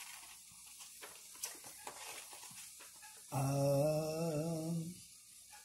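A man's voice holding a drawn-out, wavering hum or "uhh" for about a second and a half, past the middle, with faint small clicks before it.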